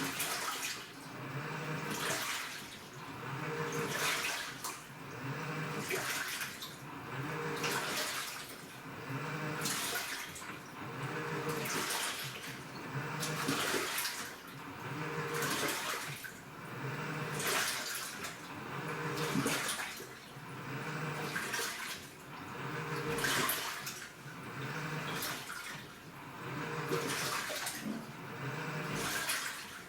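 Washing machine in its wash cycle: water sloshing and swishing about once every two seconds as the drum turns back and forth, with a low motor hum rising on each stroke.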